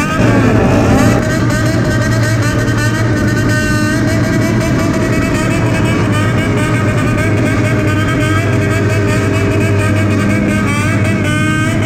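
Honda CBX400F air-cooled inline-four revving continuously in a high-rev "call" through a Waltz Kikai exhaust, held high with the pitch wavering as the throttle is worked.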